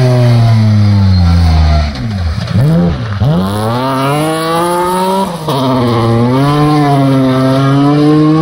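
BMW 1 Series rally car's engine at high revs. The note falls as the car slows for a bend and dips sharply twice, then rises as it accelerates out, drops once at an upshift about five seconds in, and keeps climbing as the car pulls away.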